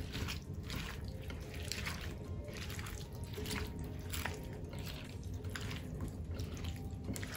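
A hand squeezing and mixing small mola fish with diced radish, green chilli and wet spice paste in a glass dish: wet squelching and rustling, roughly two squeezes a second.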